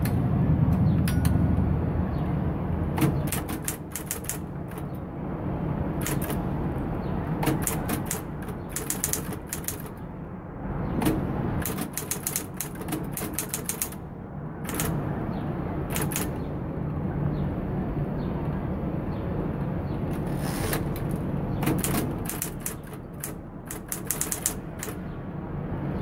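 Smith-Corona Electra 110 electric typewriter typing: its motor hums steadily underneath, and the keys strike in quick bursts of sharp clacks, with short pauses between bursts.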